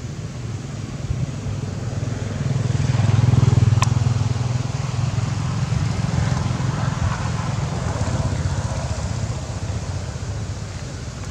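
Low engine rumble of a passing motor vehicle, swelling about three seconds in and slowly fading, with one short sharp click about four seconds in.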